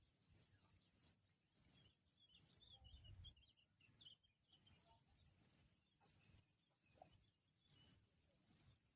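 Faint outdoor ambience: an insect chirping high-pitched in an even pulse, a little over once a second, with faint bird twittering about a third of the way in.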